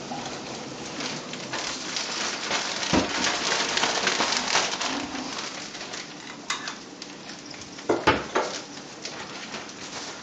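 Coated pike fillets frying in butter in a nonstick pan: a steady sizzle with scattered pops and crackles. A few louder sharp clicks come about three and eight seconds in.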